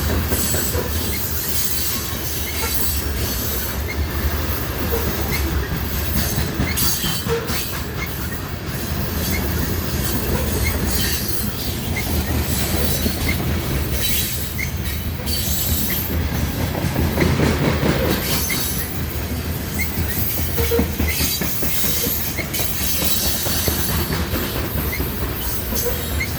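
A slow freight train's cars rolling past close by: a steady rumble with wheels clicking over the rails and brief, scattered wheel squeals.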